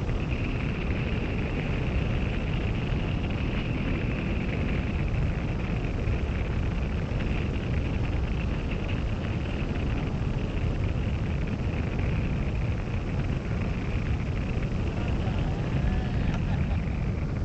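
Wind buffeting the microphone of a camera mounted on a hang glider's wing in flight: a steady low rumble with a faint hiss above it.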